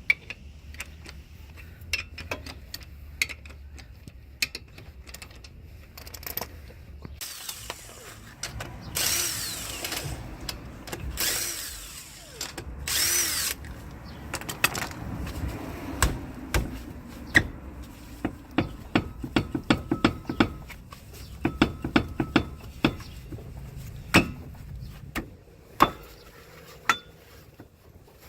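Power tool spinning lug nuts off the wheel studs in three short bursts, its motor winding up and down, followed by a run of sharp metal clicks and clanks as the nuts and wheel are handled.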